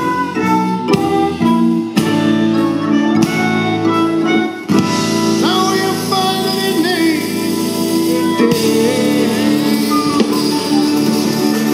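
Live band instrumental break: a harmonica played cupped against the vocal microphone over keyboards, electric guitar, bass and drums. The melody moves in quick separate notes, then about halfway through turns to held notes that bend in pitch.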